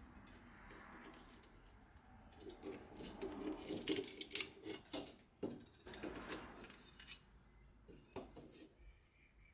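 Blacksmith's tongs clinking and scraping against a wire-bound stack of steel knife blanks as they grip and lift it from the forge. There are scattered light metallic clicks and rustles, busiest in the middle, with one sharp click near the end.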